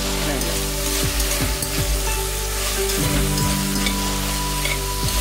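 Chopped vegetables sizzling in hot oil in an open stainless-steel pressure cooker while a metal spatula stirs them, scraping against the pot: the sauté stage of a pulav base.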